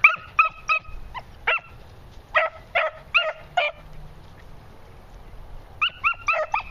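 Beagle pups yipping: about a dozen short, high-pitched barks in three quick bunches with pauses between. They come as the young hounds work nose-down on scent, the voice they give on a trail.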